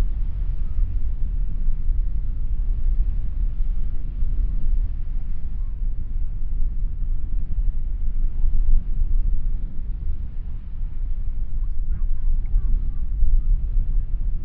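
Breeze buffeting the microphone: a loud, rough low rumble that keeps swelling and easing.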